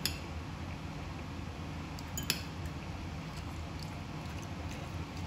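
Metal fork clinking and scraping against a ceramic bowl of red beans and rice, with two sharper clinks, one at the very start and one a little over two seconds in, over a steady low room hum.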